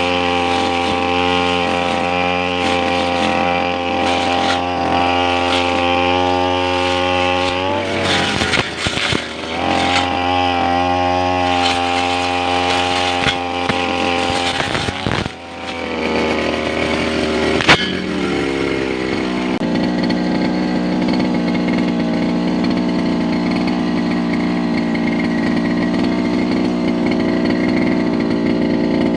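Brush cutter engine running at high speed, easing off briefly twice, then dropping to a steady idle about two-thirds of the way through. A single sharp knock sounds just before it settles to idle.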